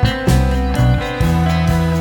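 Background music: a guitar-led track with a steady beat and bass line.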